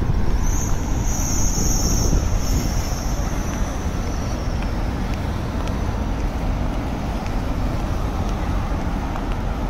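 Steady city street traffic noise with cars passing. A high hiss sounds over it for about two and a half seconds near the start.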